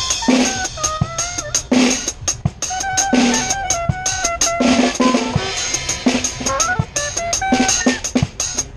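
Suitcase drum kit playing a groove of bass drum, hi-hats and cymbals with a syncopated snare, and a saxophone playing a melody of held, sliding notes over it.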